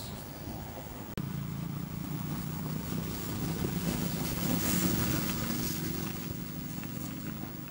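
A steady engine hum that grows louder to a peak about five seconds in and then fades, with an abrupt break about a second in.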